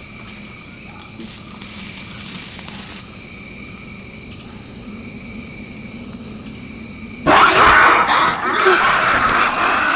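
Steady drone of night jungle insects. About seven seconds in, a sudden, much louder, harsh noisy sound breaks in and keeps going.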